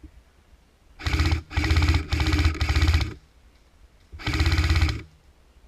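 Airsoft gun firing on full auto: four short bursts in quick succession about a second in, then a longer burst a second later, each a fast string of shots.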